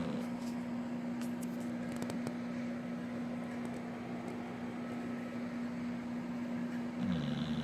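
A sleeping American bulldog snoring. A long pause between snores is filled only by a steady low hum, then the next snore begins near the end.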